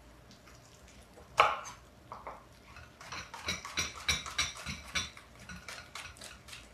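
Knife chopping green onions on a wooden cutting board: one sharp knock about a second and a half in, then a quick, steady run of chops from about three seconds in.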